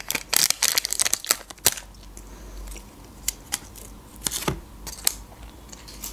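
Foil lid being peeled off a plastic yogurt cup, crackling for the first couple of seconds. A few separate clicks and taps follow.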